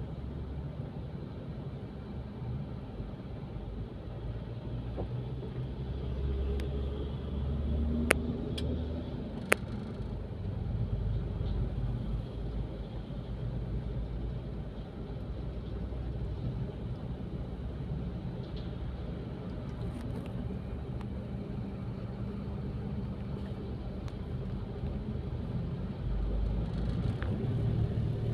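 Concrete mixer truck's diesel engine running with a steady low rumble, swelling a little about a third of the way in and again near the end. Two sharp clicks stand out about eight and nine and a half seconds in.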